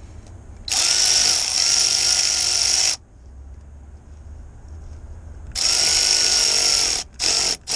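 Cordless power ratchet running on an extension and socket, driving down a hose clamp screw on a silicone air compressor intake hose. It gives one run of about two seconds, a pause, then a run of about a second and a half and two short bursts near the end, like a fastener being snugged up.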